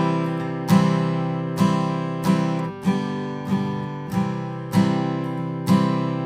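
Instrumental music with no singing: chords struck in a steady rhythm, about three every two seconds, each ringing on until the next.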